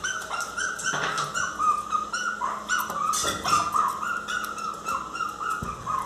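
Miniature pinscher puppy crying in a rapid run of short, high-pitched whines, about three a second, wanting to be let into the house.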